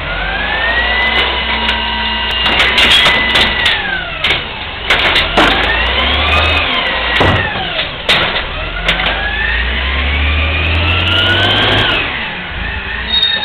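Amrep automated side-loader garbage truck running its lifting arm. The engine revs and the hydraulic pump whine rises and falls three times as the arm lifts, dumps and lowers a cart, with several knocks and clanks from the cart and arm in between.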